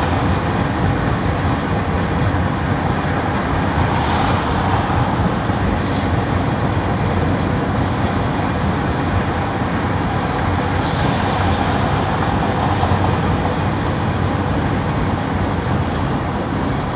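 Steady engine drone and road noise inside a Peterbilt semi-truck's cab at highway speed, with a few short hisses.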